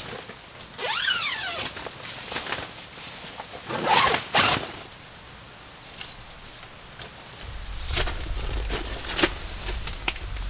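Rustling and clattering of camping gear being handled, in several separate bursts, with a low rumble near the end.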